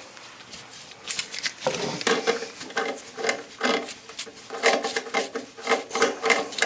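Hand-tool work on a toilet's metal closet bolts: a run of short metallic clicks and scrapes, several a second, starting about a second in.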